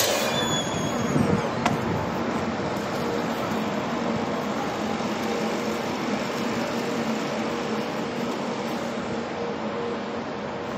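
A sharp knock at the very start, like an entrance door closing, then steady outdoor noise with a low, even hum from vehicles and machinery around a truck parking lot.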